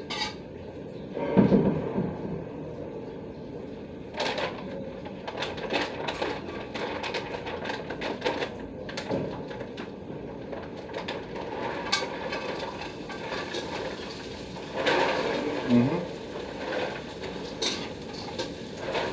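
Crinkling of a clear plastic bag as dried anchovies are tipped out of it into an aluminium wok, with scattered clicks and scrapes of a metal spatula stirring them in the pan.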